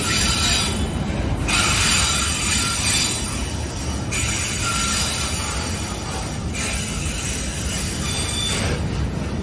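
Freight train of tank cars rolling past: a steady rumble of steel wheels on rail. Over it runs a high wheel squeal that swells and fades in stretches of about two seconds.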